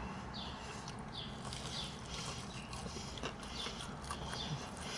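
A person chewing a crunchy fried chicken tender close to the microphone, with rhythmic crunching about two chews a second over a low steady background hum.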